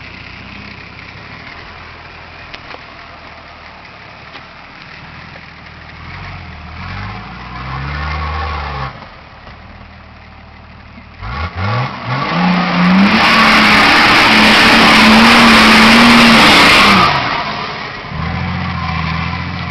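Nissan Patrol Y60's 2.8-litre turbo-diesel engine running steadily, then revving up and down once briefly. Past the middle it revs hard and holds loud high revs for about four seconds under load as the 4x4 climbs a steep sandy bank, then drops back to a steady idle near the end.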